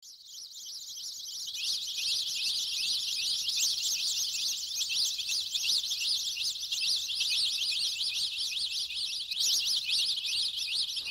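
Dense chorus of rapid high-pitched bird chirps, many overlapping, fading in over the first second or two.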